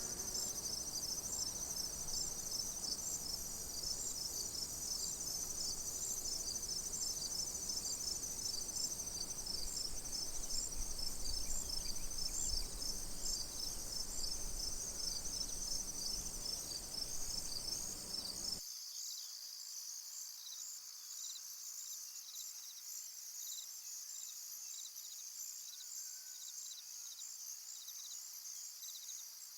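Crickets chirping in a steady high-pitched chorus of rapid pulsed chirps, several at once. A low background rumble under them cuts off suddenly about two-thirds of the way through, and the crickets carry on.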